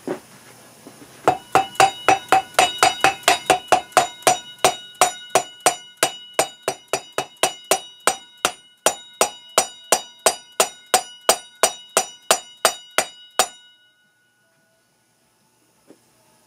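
A hammer tapping a new sealed ball bearing into a motorcycle's front wheel hub, about three steady metal-on-metal strikes a second, each with a short ring. The strikes stop suddenly about two-thirds of the way through.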